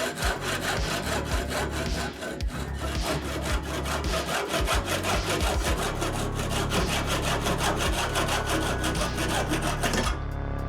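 Hand saw cutting through wood with quick, even back-and-forth strokes, stopping near the end.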